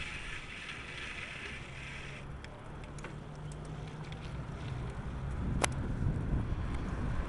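Wind buffeting the microphone and road rumble from a bicycle ride, a low rumble that grows louder near the end. One sharp click about five and a half seconds in.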